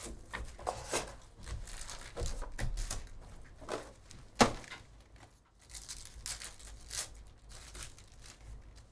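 Foil wrappers of Panini Phoenix football card packs crinkling and tearing as the packs are pulled from the hobby box and ripped open, with cards handled. There are irregular rustles throughout, and a single sharp knock about four and a half seconds in.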